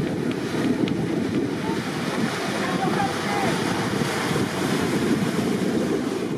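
Wind buffeting the microphone in a loud, steady rumble, over the hiss of water churned up by a motor cruiser passing close by.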